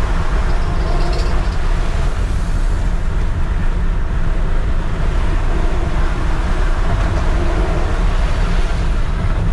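Steady engine and road noise inside the cab of a 2001 Ford F350 with a 6.8-litre V10, cruising at highway speed.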